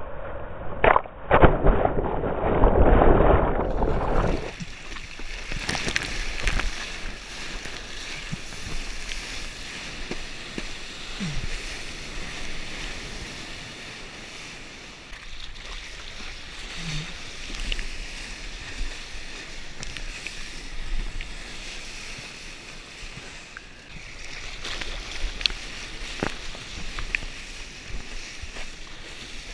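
Whitewater rushing and splashing right at the microphone as a surfboard moves through small, choppy waves, loud and dull for the first four seconds, then a steadier hiss of water and wind with small swells in level.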